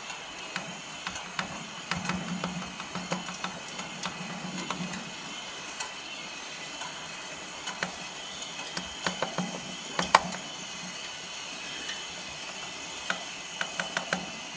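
Light clicks and taps of a spoon against a metal cezve as ground coffee is added and stirred, coming in scattered clusters, with one sharper clink about two-thirds of the way through.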